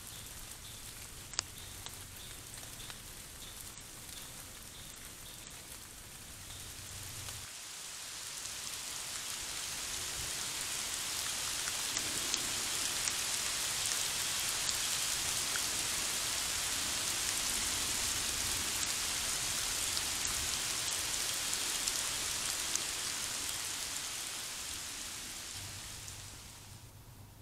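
Steady rain falling on leaves and ground, a dense hiss that comes in about a quarter of the way through and fades away near the end. Before it there is a faint high ticking about twice a second and a single sharp click.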